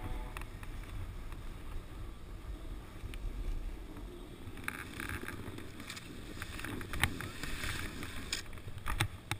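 Snowboard sliding down a snowy slope, with wind rushing over the action camera's microphone as a steady low rumble. From about five seconds in come scrapes and knocks from the board on the snow, then sharper thuds near the end as the rider falls back into the snow.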